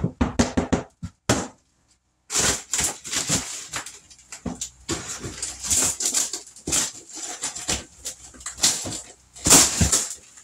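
Irregular scraping, cracking and knocking of hand demolition work as a piece of old bathroom wall paneling and trim is worked loose, in short uneven bursts with a brief break about two seconds in.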